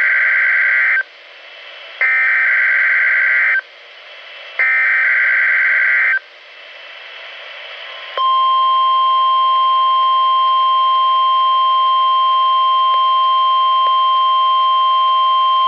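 NOAA Weather Radio test alert played through a weather radio's speaker. The first sound is the last of three buzzy digital SAME header bursts, each about a second and a half long with about a second between them. About eight seconds in, a steady 1050 Hz warning alarm tone starts and holds.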